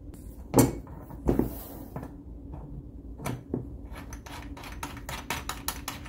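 Powder coating gun parts and fittings being handled. Two sharp knocks come in the first second and a half, then a run of quick light clicks, about four or five a second, from about four seconds in.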